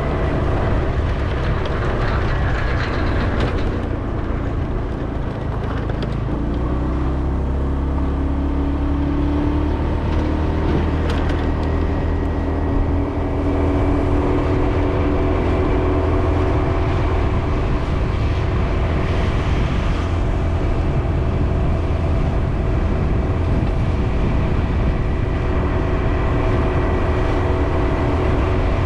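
Steady engine and road noise of a moving vehicle: a continuous low rumble with engine tones that shift in pitch as the speed changes.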